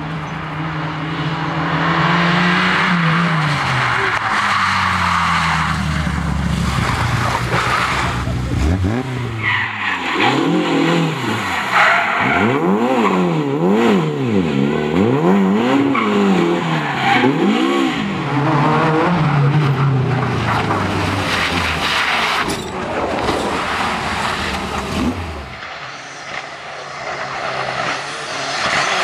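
Racing car engine revving hard, its pitch rising and falling repeatedly under a steady hiss of tyre noise. In the middle the revs swing up and down about once a second.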